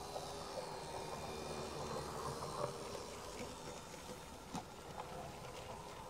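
Model garden railway tram loco with a Swift Sixteen electric motor running slowly past, a steady motor and gear whine with a few light clicks from the wheels of it and its empty goods wagons on the track.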